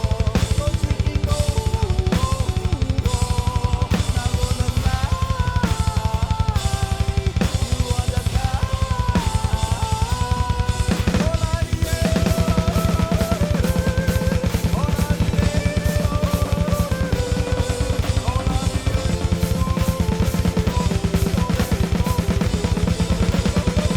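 Loud band music with no singing: a drum kit plays a fast, even beat of bass drum, snare and cymbals under a pitched lead melody that steps and slides up and down.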